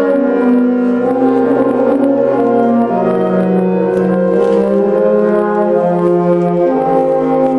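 High school concert band playing sustained chords, brass to the fore, with the chords changing every second or two.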